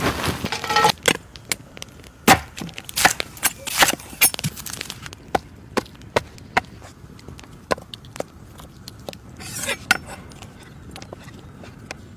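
Irregular series of sharp knocks and cracks, denser in the first half, with a brief rustling burst a little before ten seconds in.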